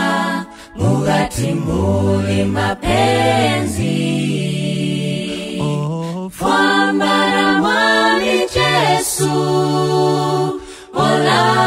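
Unaccompanied vocal group singing in close harmony, male and female voices, with a low bass part holding long notes under the melody.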